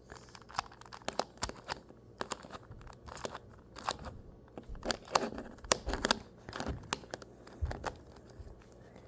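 A 2x2 Rubik's cube being turned by hand in quick moves, giving an irregular run of plastic clicks and scrapes that stops near the end.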